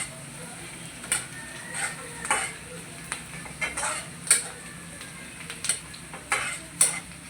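Onions, garlic and spices frying in hot oil in a kadai for a dal tempering, stirred with about a dozen irregular scrapes of the utensil against the pan over a steady sizzle.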